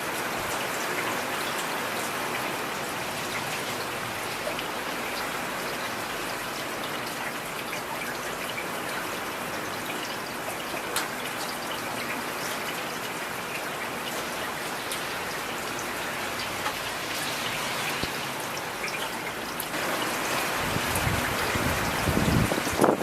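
Steady rain falling, with many separate drop hits heard through it. Near the end a deeper, louder rumble swells up beneath the rain.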